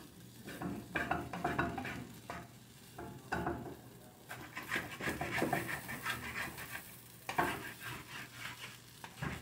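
Wooden spatula stirring and scraping fried rice around a frying pan on a gas burner, in irregular strokes with light taps against the pan, over a low sizzle of the rice frying.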